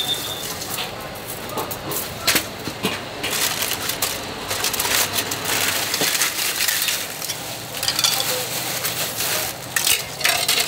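Seafood being handled in a stainless steel colander: a plastic bag rustles and crinkles, and shells and flesh knock and scrape against the metal in many sharp, irregular clicks.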